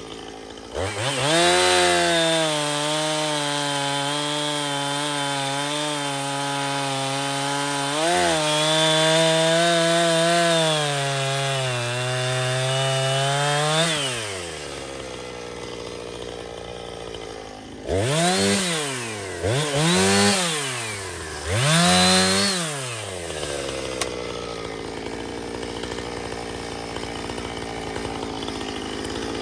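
Two-stroke chainsaw cutting wood at full throttle for about thirteen seconds, its pitch wavering slightly, then dropping to idle. It is then revved three times in short blips about two seconds apart and settles back to idle.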